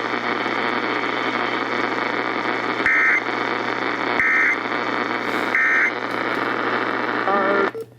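Weather radio static, a steady hiss with a low hum, broken by three short warbling data bursts about a second and a half apart. These are the EAS end-of-message code that closes the tornado warning broadcast. The static cuts off near the end.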